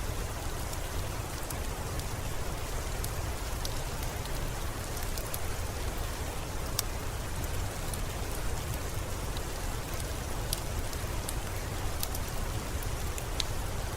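Steady rain: an even hiss with a low rumble underneath, and scattered sharp ticks of single drops striking a hard surface.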